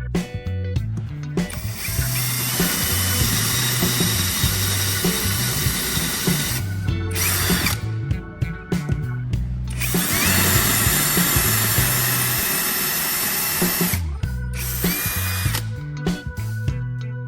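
Electric drill running in four bursts, long and short, its motor whining up in pitch as it starts, most likely drilling with the sharpened bit.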